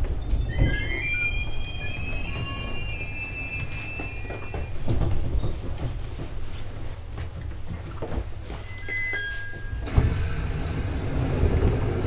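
Electric train noise at a station: a steady low rumble, with a thin high whine or squeal of several tones that rises slightly over the first few seconds and returns briefly near the middle, and a thud near the end.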